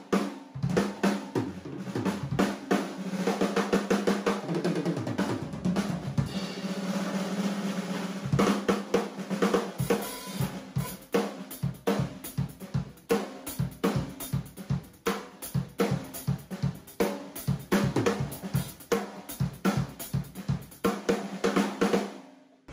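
A drum kit played continuously: a dense run of snare, tom and bass drum hits with cymbals, in busy fills and rolls, stopping abruptly at the very end.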